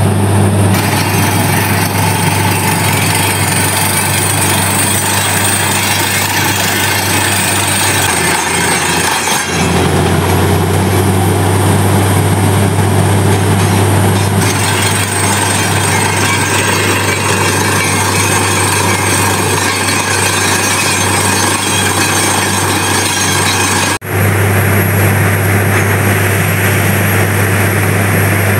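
Truck-mounted borewell drilling rig running: a loud, steady heavy engine and air-compressor drone under a constant hiss as it drills the bore, with two brief breaks, about nine and a half and twenty-four seconds in.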